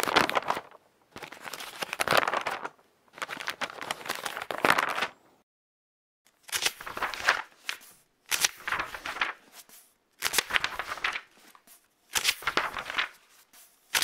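Book pages being turned one after another, each turn a short papery rustle and flap. There are about seven turns, separated by brief silences.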